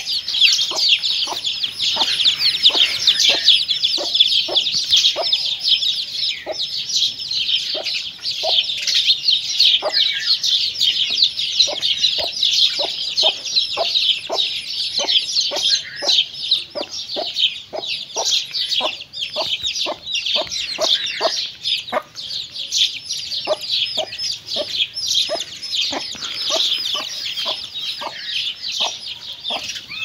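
Mother hen clucking in short low notes, about one or two a second, while her chicks peep without pause in a dense chorus of high chirps.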